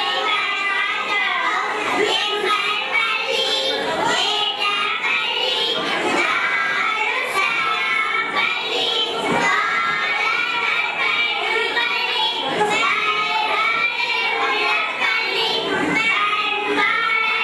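A group of young girls singing together in unison into microphones, amplified through a PA system.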